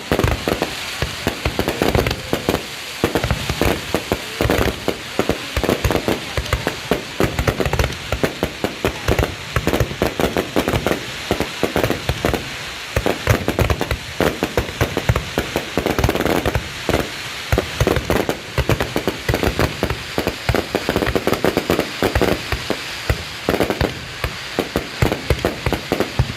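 Fireworks going off continuously: a dense, unbroken run of sharp bangs and crackles throughout.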